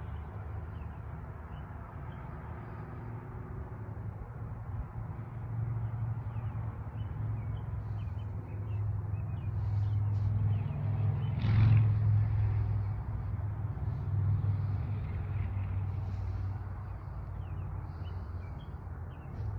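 A road vehicle's engine, a low steady rumble that swells to its loudest about twelve seconds in, with a short hiss at the peak, then eases off as it passes.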